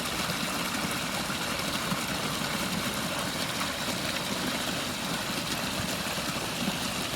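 Water from a pondless backyard waterfall cascading steadily over rocks, with its rocks freshly sealed with expanding foam so the full flow stays on top of the stone bed and gives a stronger, fuller sound.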